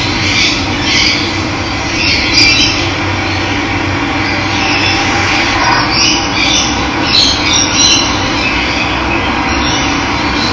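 Steady rush of running water, with birds chirping over it.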